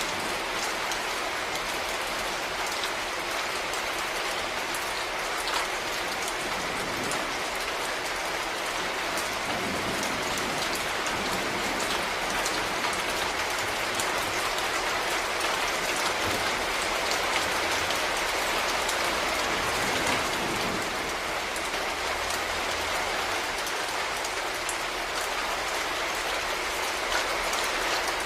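Steady rain falling, a dense even hiss with many small drop taps on a surface.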